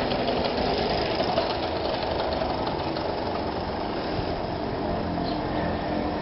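VéloSoleX 5000 moped's small two-stroke engine, freshly rebuilt, running under load as it rides off, with a fast, even beat that fades as it moves away.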